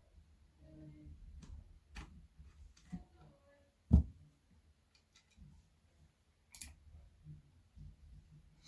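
Small clicks and taps from handling parts while a speaker cabinet is taken apart, with one sharp, loud thump about four seconds in.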